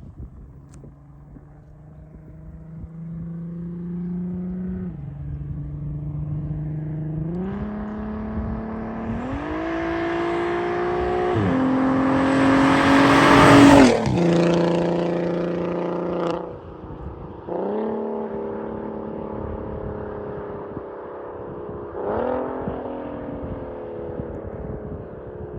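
Volkswagen Passat CC 3.6-litre VR6 engine and exhaust accelerating hard, the note climbing in pitch through several gear changes, each marked by a sudden drop in pitch. It is loudest a little past halfway, then eases off and falls away in pitch, with one brief blip of throttle near the end.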